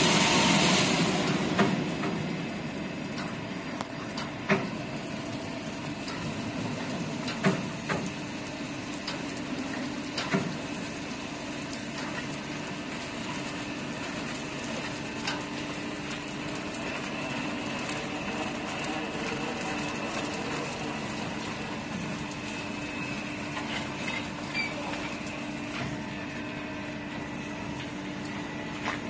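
Automatic tunnel car wash machinery running: rotating cloth brushes scrub a car over a steady mechanical hum with a held tone, and sharp clacks sound every few seconds. A loud rushing noise at the start drops away within about two seconds.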